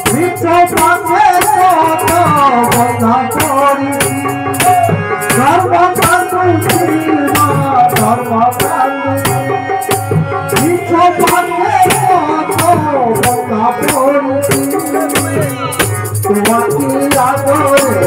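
Devotional bhajan: a man singing a gliding, ornamented melody over a harmonium's sustained chords, with a handheld rattle keeping a steady beat.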